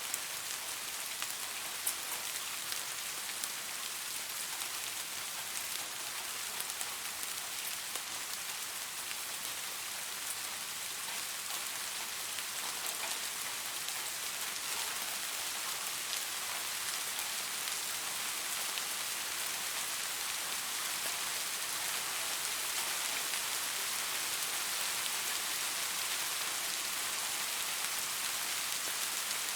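Steady rain falling on leaves: an even hiss with scattered sharp drop ticks, growing a little louder from about halfway through.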